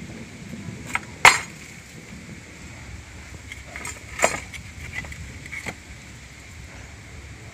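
Old scrap wooden boards knocking and clattering against each other as they are handled and pulled from a pile, a handful of separate knocks, the loudest about a second in.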